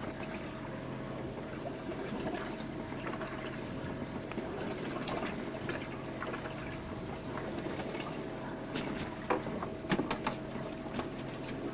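A boat's engine humming steadily under a wash of water sloshing along the hull, with a few sharp clicks or knocks near the end.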